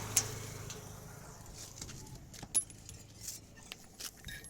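Scattered light metallic clinks and taps of tools and parts being handled during truck spare-wheel work, with one sharp click near the start and another louder tap about halfway through.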